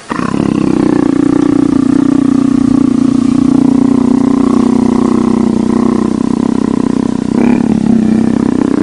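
Big spotted cat giving a long, loud, steady rumbling growl for about seven seconds, a brief break near the end, then a shorter rumble that stops just before the end.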